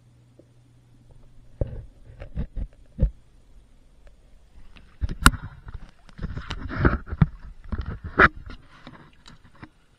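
Underwater camera being lifted out of a koi pond: a faint low hum cuts out, a few sharp knocks on the camera body follow, then a longer stretch of splashing and dripping water with handling clicks as it breaks the surface.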